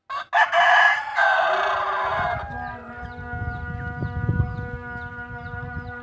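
A rooster crows once, loud and harsh, for about two seconds. After it comes a steady hum of several held tones, with faint short chirps about twice a second.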